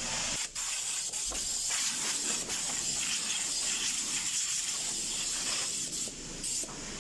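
Compressed air hissing steadily from a blow gun, blowing dust off the engine around the spark plug wells, with a brief dip about half a second in.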